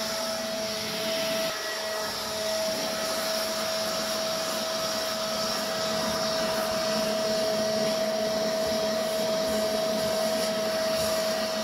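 Corded electric leaf blower running steadily at close range, a rushing of air with a steady whine.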